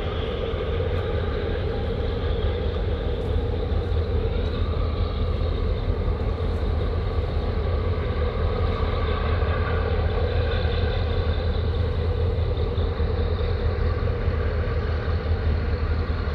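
A steady, loud engine drone with a deep low hum and a faint wavering whine above it.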